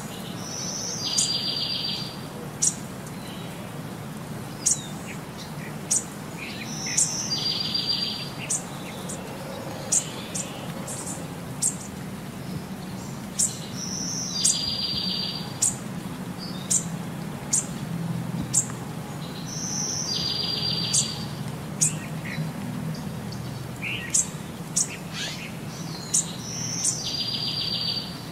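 Birds chirping in a looping background ambience: sharp high chirps every second or so, and a short buzzy trill about every six seconds. It repeats unchanged across a change of scene, so it is a soundtrack laid over the pictures rather than sound from the scene.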